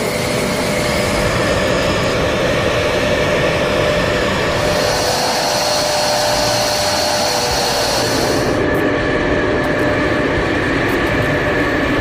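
Jet aircraft engine running steadily: a loud, even rush of noise with a high whine that strengthens about five seconds in and drops away about four seconds later.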